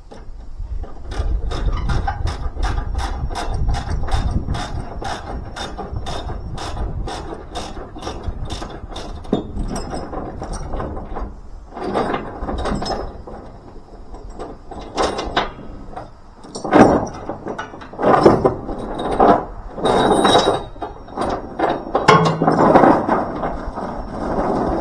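A ratchet tie-down, a ratchet strap or chain binder, being worked in a steady run of clicks, about three a second, as the tractor's load securement is undone. From about twelve seconds in there are louder, irregular noises.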